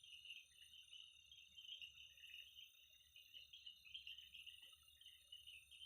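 Faint, steady insect chorus of crickets, a continuous high trilling.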